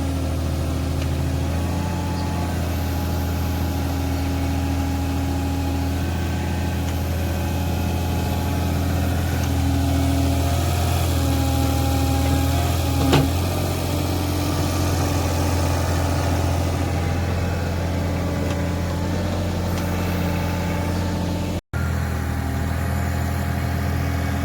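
Caterpillar 303 mini excavator's diesel engine running steadily, with one sharp knock about 13 seconds in.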